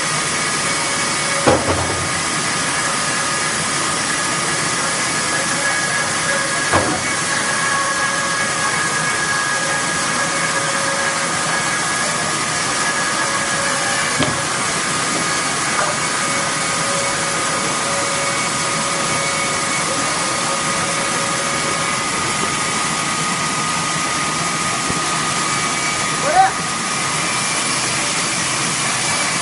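Machinery running steadily: a loud, even rushing noise with a few steady whining tones, broken by a handful of short knocks.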